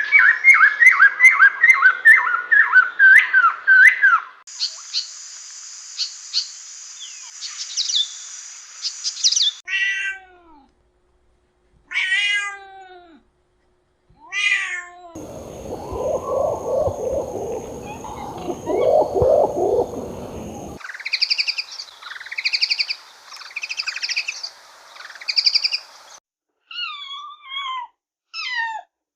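A string of separate animal-call clips: fast repeated bird chirps and high twitters, then cats meowing with single gliding calls, a low rough stretch, and a bird's repeated two-part call.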